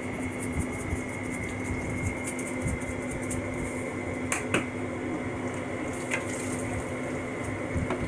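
Steady hum of a kitchen appliance with a low and a high held tone, with a few sharp clicks and knocks of kitchen utensils and containers: two close together about halfway through, another about six seconds in, and one near the end.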